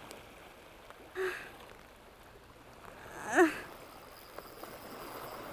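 A woman's short strained grunts while fighting a heavy fish on the rod: a brief one about a second in and a louder one rising and falling in pitch about three and a half seconds in. Under them, a steady wash of sea and rain.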